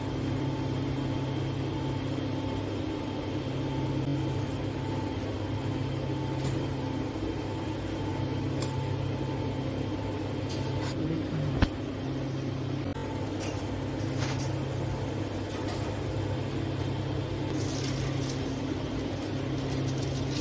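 Steady low machine hum with a few faint clicks and one sharp click a little past halfway.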